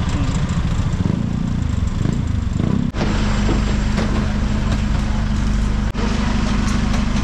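Road traffic, with car engines passing and shifting in pitch, for about three seconds. Then a steady engine-like drone holds one low pitch.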